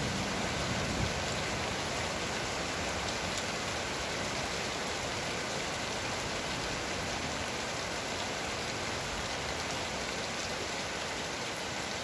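Rain falling steadily during a thunderstorm, an even hiss that eases off very slightly over the stretch.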